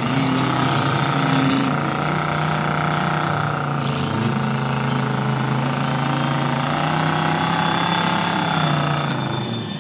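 Lifted mud-bog pickup truck's engine held at steady high revs as the truck churns through a mud pit, dropping in pitch about nine seconds in.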